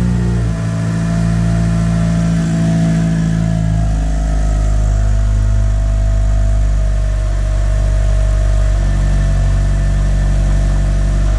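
Mitsubishi Lancer Evo VI Tommi Mäkinen's turbocharged 2.0-litre four-cylinder idling just after a cold start, its pitch stepping a few times as the idle settles.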